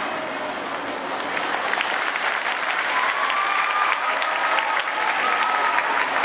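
Crowd applauding, a dense run of claps, with a few voices calling out over it from about three seconds in.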